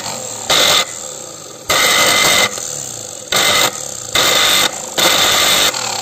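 Mixer grinder's universal motor, with its body opened, switched on and running at speed, loud throughout and louder in five short stretches of under a second each, then starting to wind down near the end. It sparks at the carbon brushes and commutator and runs below full speed, which the repairer takes for a failed armature.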